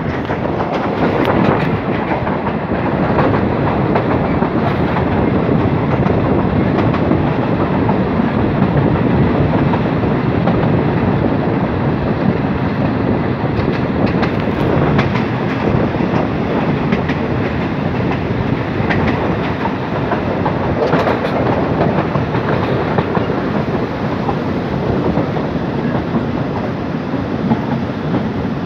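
Passenger express train running on the rails, heard from inside a coach: a steady rumble with the wheels clacking now and then over rail joints.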